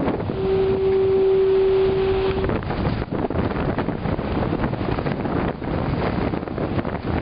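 A foghorn sounds one steady low blast of about two seconds, starting about half a second in. Underneath it, wind buffets the microphone and heavy surf breaks on the rocks.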